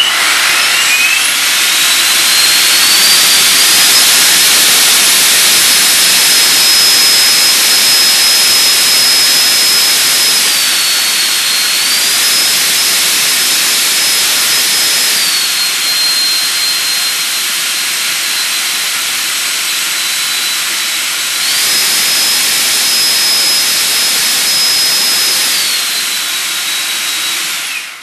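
Dynamically balanced RC electric ducted fan driven by a 3553 1500 KV brushless motor, running at high speed: a loud rushing jet-like whine that climbs in pitch over the first few seconds. It then eases back and opens up again a few times with the throttle, and shuts off at the end.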